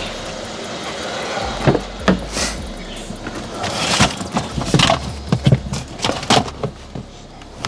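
A QuickJack lift frame being handled and loaded into a truck: a run of separate metal knocks and clanks, the loudest about four to six and a half seconds in, over a low hum.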